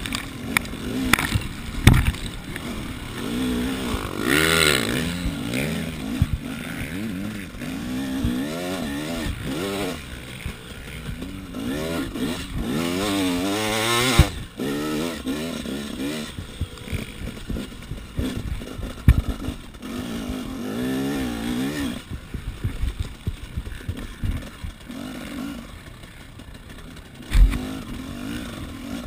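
KTM 300 EXC two-stroke engine revving hard and easing off again and again, its pitch rising and falling as the bike is ridden over a sandy motocross track. A few sharp thumps sound, the loudest near the end.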